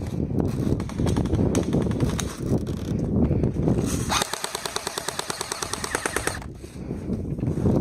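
Airsoft electric gun firing on full auto in long bursts, a rapid even rattle of shots, with a short pause about three quarters of the way through.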